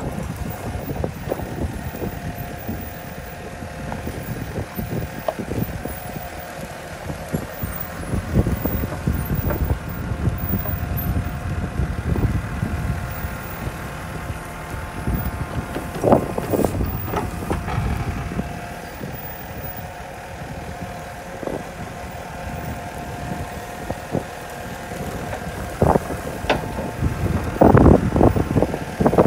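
JCB 4CX backhoe loader's diesel engine running under load, with a steady hydraulic whine as the rear backhoe bucket digs in to move the machine. Scattered clunks and scrapes from the boom and bucket, loudest in the last couple of seconds, with wind on the microphone.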